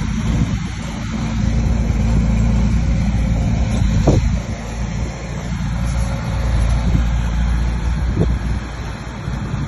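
Bulldozer's diesel engine running steadily at a low rumble, with a brief knock about four seconds in.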